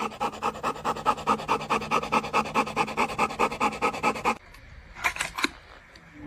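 A dog panting fast and hard in a quick, even rhythm of about six breaths a second, excited over a tennis ball. The panting stops abruptly about four seconds in, and a couple of short, quieter sounds follow.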